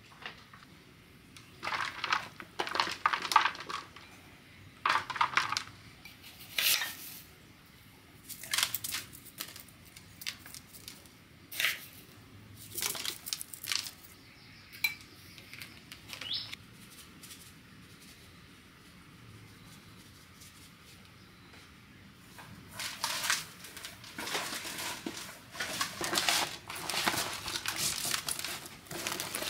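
A metal spoon clinking and scraping against a metal bowl and sprinkling seasoning and salt over fish in a plastic basin, in scattered short strokes. Later, a denser run of rubbing as hands work the marinade into the fish.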